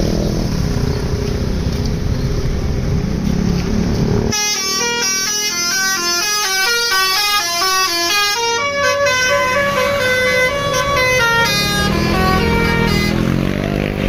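Bus engine and road rumble for about four seconds, then a coach's basuri musical air horn plays a melody of quick stepped notes that slow into longer held notes, lasting about nine seconds.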